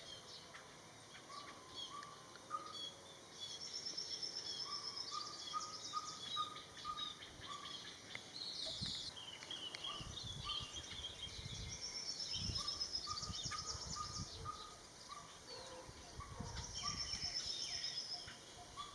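Several garden birds calling together. One repeats phrases of short, evenly spaced low notes, while another gives a high, fast trill three times, amid scattered chirps.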